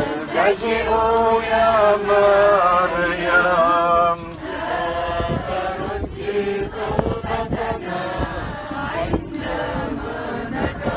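A group of voices singing a hymn together in a chant-like unison, with long held notes. The singing is louder for the first few seconds and dips briefly about four seconds in before going on more softly.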